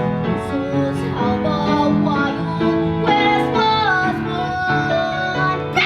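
Country-style backing music with plucked guitar.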